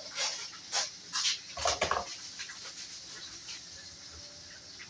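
A dog making a few short sounds, possibly huffs or yelps, in the first two seconds, followed by faint steady background noise.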